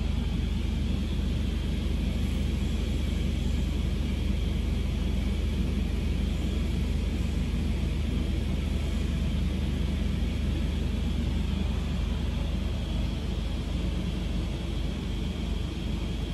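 Steady low rumbling noise with a faint hiss above it, unchanging throughout, with no distinct events.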